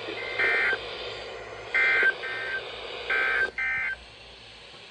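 EAS SAME end-of-message data bursts: a run of about five short, buzzy two-tone digital bursts, each under half a second, over a steady radio hum and hiss.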